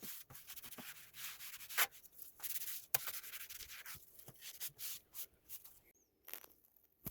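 Irregular rubbing and scraping with scattered sharp clicks and knocks as the 3D printer's parts are handled, thinning out near the end.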